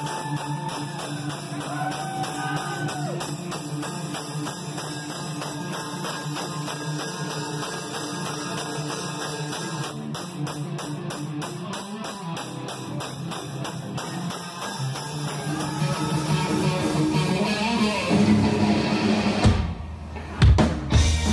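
Live rock band playing: electric guitar over a drum kit keeping a steady beat. Near the end the music drops out briefly, then comes back in loud and bass-heavy.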